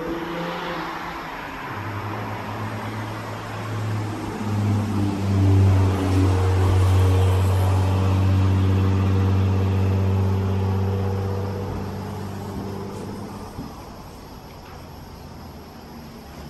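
An engine's low drone that grows louder over the first few seconds, holds steady for several seconds, then fades away again.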